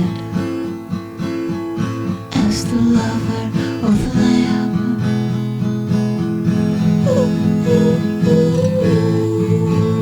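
Music: an instrumental passage of a song led by strummed acoustic guitar, with a held melody line that bends in pitch near the end.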